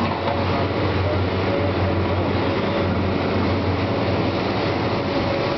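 John Deere 450D LC hydraulic excavator running steadily while it works its arm, a continuous low engine drone with no pauses.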